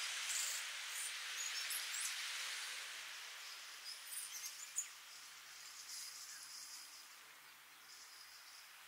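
Gentle ocean waves washing onto a sandy shore: a soft, even hiss that fades lower from about a third of the way in. A few faint high chirps come around the middle.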